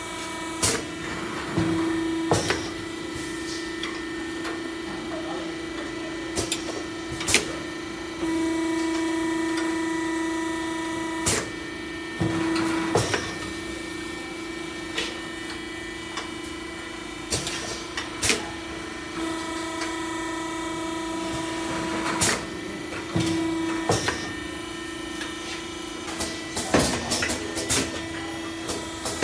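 Automatic multi-nozzle liquid filling machine running: a steady motor hum, with sharp clacks and short hisses of air every few seconds as the filling heads cycle.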